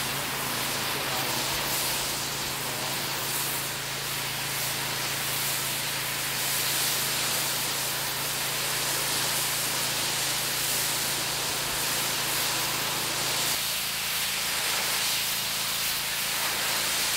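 Pressure washer spray wand jetting water onto a concrete sidewalk edge: a steady hiss of the high-pressure spray, with a low steady hum underneath.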